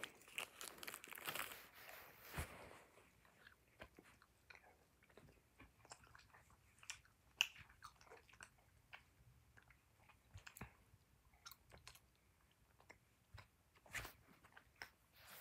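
Close-up chewing of Sour Patch Kids gummy candy: faint, irregular mouth clicks and smacks. They are busier and louder in the first two seconds or so.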